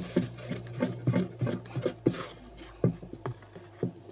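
Wooden spoon stirring a thick homemade liquid laundry-soap mixture in a plastic tub, knocking and scraping against the tub's sides in an irregular run of short taps, a few a second.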